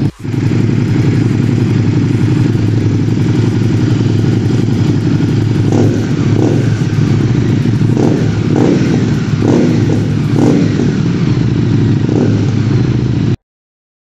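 Harley-Davidson Street Rod 750's liquid-cooled V-twin idling through a Screaming Eagle slip-on exhaust, with a deep, steady note. A few short throttle rises come in the second half, and the sound cuts off abruptly near the end.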